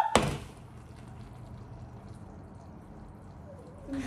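Hot burnt caramel poured from a cooking pot into a ceramic mug: a brief burst of noise at the very start, then only faint pouring and room noise.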